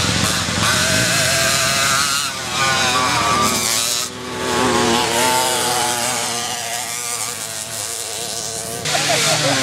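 Small two-stroke moped engines revving hard under load on a dirt climb, a high buzzing whose pitch rises and falls with the throttle, more than one engine at once.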